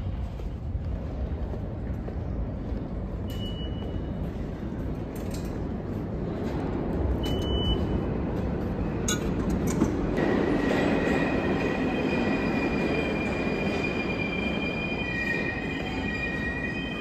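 New York City subway train in the station, a rumble that grows louder from about six seconds in, joined about ten seconds in by steady high-pitched wheel squeal. Two short electronic beeps sound a few seconds apart before the squeal.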